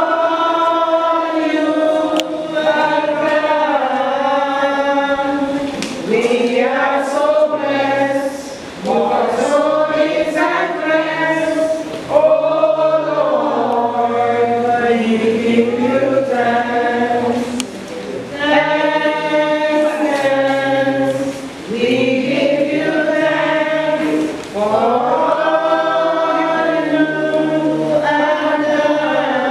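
A group of voices singing together, line by line, with short breaks between phrases.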